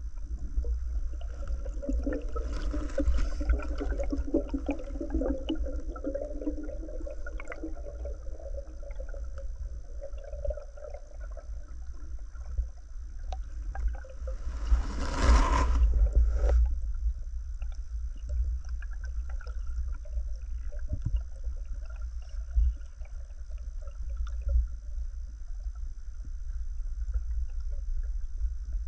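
Muffled underwater noise picked up through a camera housing: a steady low rumble with a faint high whine, and a loud rushing burst about halfway through that lasts about two seconds and cuts off suddenly.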